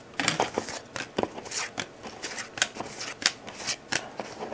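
2015 Panini Gridiron Kings football trading cards being flipped through by hand, giving a run of short, irregular card snaps and slides.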